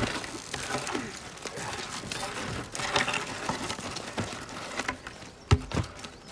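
Horse walking, its hooves knocking irregularly on the dirt track. A single heavier knock stands out about five and a half seconds in.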